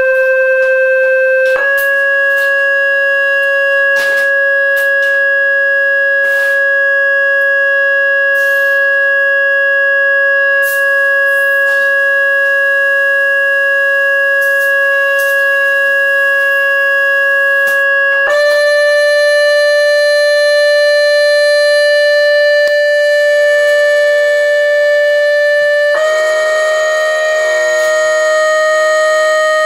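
Loud steady sine-wave test tone driving a cymatics sand plate, stepped up slightly in pitch three times: a couple of seconds in, about two-thirds through, and near the end. After the last step it turns rougher, with extra buzzing tones.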